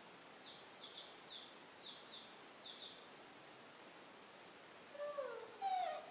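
Chicks and ducklings peeping softly in quick pairs of short high chirps. About five seconds in, a baby macaque gives louder wavering cries that fall in pitch.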